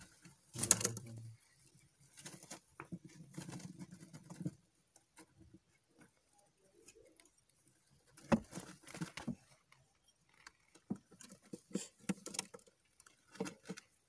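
Faint, scattered scratching and rustling with a few sharper clicks, as a cockatiel shifts about on the wood-chip bedding of a wooden nest box.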